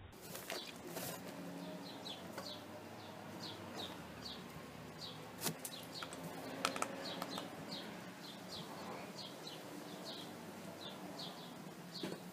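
A small bird chirping over and over in short, high, falling notes, about two a second. A few sharp metal clicks and knocks come from the smoker's firebox door being handled, the loudest a little past the middle.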